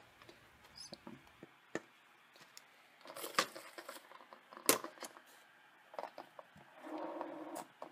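Handling noises as art supplies are moved about on a table covered with plastic sheeting: rustling, scattered knocks and clicks, one sharp click near the middle, and a short rubbing sound near the end as the plastic cake turntable is handled.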